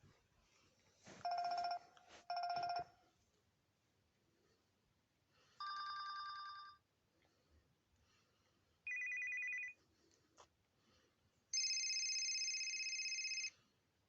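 HTC Wildfire S smartphone playing brief previews of its built-in ringtones through its small speaker, one after another: a short double beep, then three more electronic tones, each of a different pitch and separated by pauses of a second or two. The last and longest runs about two seconds.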